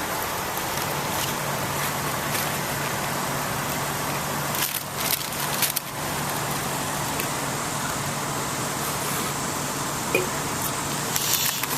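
Steady noise of road traffic running on, with a low hum through the first half and a few crackling clicks about five seconds in.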